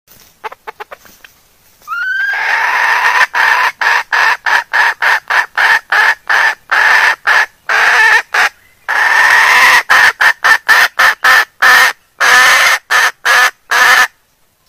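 Junglefowl hen in breeding condition calling for a cock: a few faint quick clucks, then a rising note and a rapid run of loud clucking calls, about three a second with a few drawn-out ones, stopping shortly before the end.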